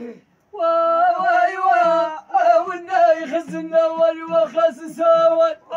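Men's voices chanting a sung verse of Amazigh poetry in unison, starting about half a second in on long, steady held notes, with two short breaks for breath.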